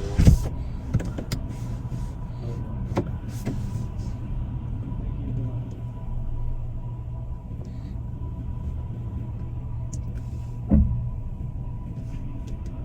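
Car engine running steadily, heard from inside the cabin, with a sharp thump just after the start and another about eleven seconds in.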